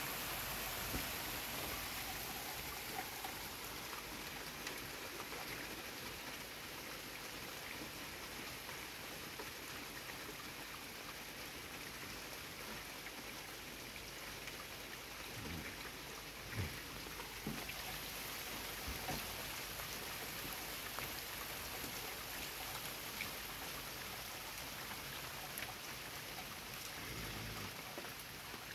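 Steady rain falling, an even hiss, with a few louder drops tapping about halfway through.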